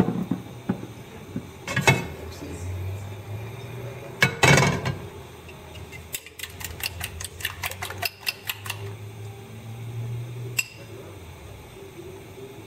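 Eggs being beaten with a utensil in a glass bowl: rapid, even clicks against the glass, about six a second, for a couple of seconds past the middle. Before that, a few louder knocks and clatters of kitchenware in the first half.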